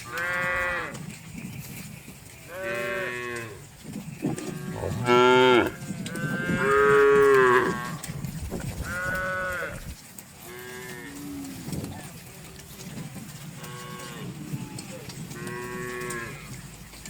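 Cattle mooing over and over, about nine separate moos. The loudest and longest come around the middle, and the last few are fainter.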